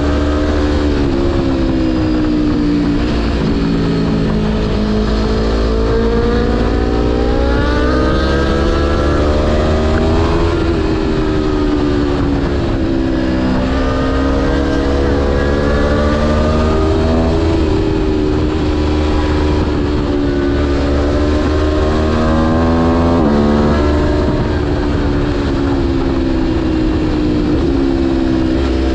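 Aprilia Tuono V4 motorcycle engine under way, its pitch climbing under acceleration and dropping back several times as the throttle is opened and closed, over a steady low wind rumble on the microphone.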